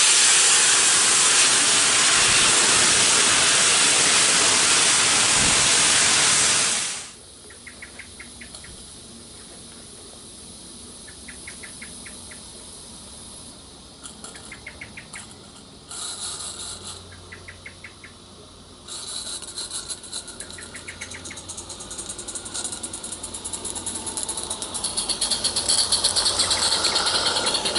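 Full-size steam locomotive 60163 Tornado blowing a loud, steady hiss of steam from its open cylinder drain cocks, cutting off suddenly about seven seconds in. Later a Roundhouse Lady Anne live-steam garden-railway locomotive approaches, its rapid chuffing growing louder toward the end.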